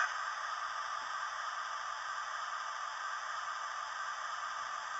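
Hornby TTS sound decoder in a model Flying Scotsman steam locomotive playing a steady steam hiss through the loco's small speaker, thin and without chuffs or whistle.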